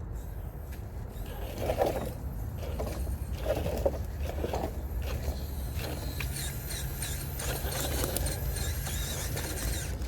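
Small electric RC crawler's motor and gears whining and grinding as it drives over the course obstacles, busier in the second half, over a steady low rumble.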